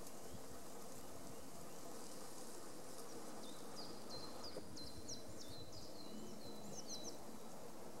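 Eurasian blue tit singing: a run of about a dozen short, high, clipped notes, roughly three a second, starting about three and a half seconds in and stopping near the end, over a steady background hiss.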